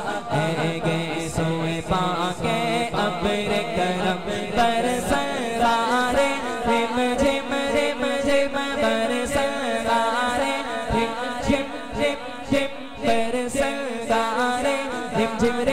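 A man singing a naat, an Islamic devotional song, in long melismatic phrases over a steady low hum, with no instruments heard.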